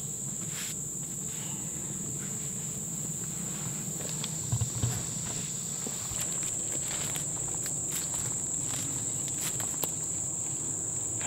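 Steady high-pitched insect chorus, with footsteps and rustling through undergrowth; a couple of low thumps about halfway through, and brushing and crackling that grows busier in the second half.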